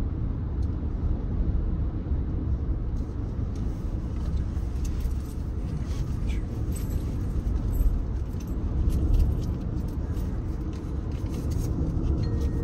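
Steady low road and engine rumble heard from inside a moving car's cabin.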